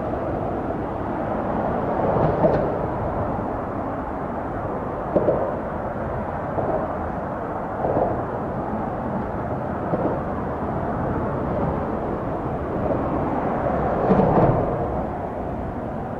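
Steady outdoor background rumble with a few soft bumps now and then.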